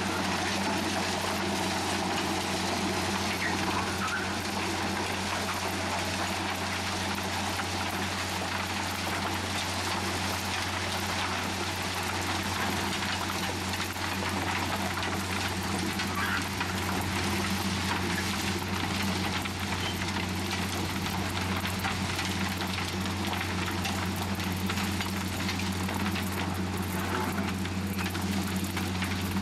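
Matisa R 21 ballast regulator at work: its diesel engine runs with a steady low hum under a continuous hiss and rattle of ballast stones being ploughed and swept.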